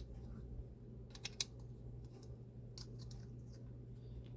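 A few faint clicks and taps of small plastic toy accessory parts being handled, a pair about a second in and another near the middle, over a low steady hum.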